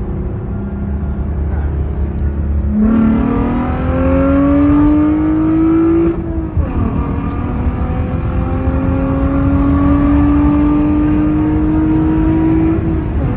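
Lexus IS250's 2.5 L 4GR-FSE V6, breathing through an aftermarket intake with a large exhaust leak, accelerating at full throttle. It runs steadily at first, then its pitch jumps and climbs from about three seconds in, drops at an upshift a little after six seconds, and climbs again until another shift near the end.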